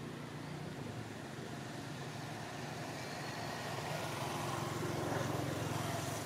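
Steady low engine hum of a motor vehicle, growing louder about four to five seconds in and then easing, as of a vehicle passing.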